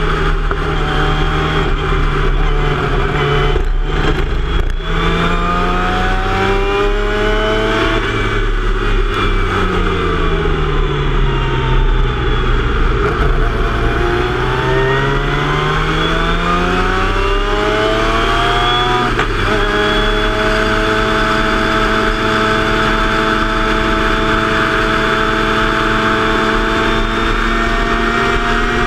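Formula Mazda race car's two-rotor Mazda rotary engine heard from the car at speed. The revs fall and rise through the corners, drop suddenly on an upshift about two-thirds of the way through, then climb slowly and steadily. Wind rush sits under the engine.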